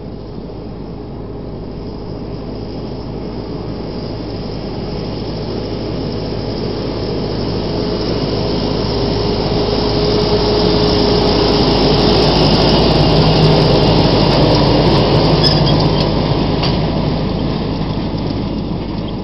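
Pronar 5340 tractor pulling a Samasz Z-410 rotary hay rake, running steadily as it approaches, passes close by and draws away. The engine drone swells to its loudest about two-thirds of the way through, with a few sharp clicks as it passes, then fades.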